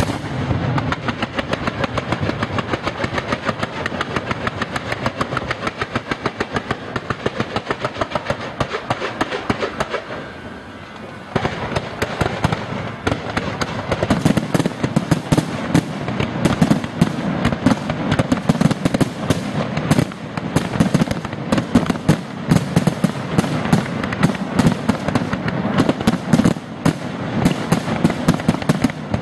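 Aerial fireworks display: a rapid, even string of bangs from bursting shells, a brief lull about ten seconds in, then a denser, louder barrage of overlapping explosions.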